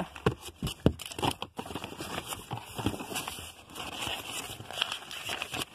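Plastic cosmetic bottles, jars and packaging in a cardboard box being handled and shifted: irregular clicks and knocks with crinkling and rustling.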